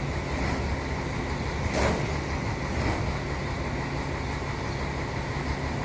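Heavy diesel engine idling steadily, with one short clank about two seconds in.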